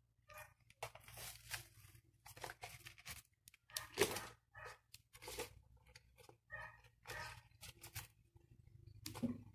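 Faint, irregular rustling and scraping as a flexible silicone air fryer liner is handled, brushed over and pushed into an air fryer basket, over a low steady hum.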